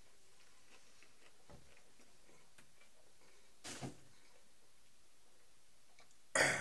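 A man chewing a big mouthful of chicken burrito, with faint mouth clicks. There is a short puff of breath about four seconds in, and near the end a loud, forceful burst of breath followed by a brief grunt.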